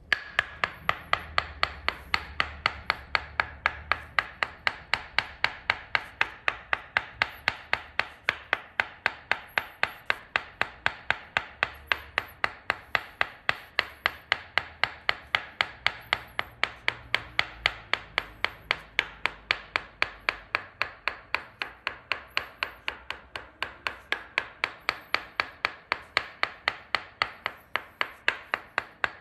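Tok sen massage: a wooden mallet tapping a wooden wedge held against the sole of a foot, a steady run of sharp wood-on-wood knocks about three to four a second.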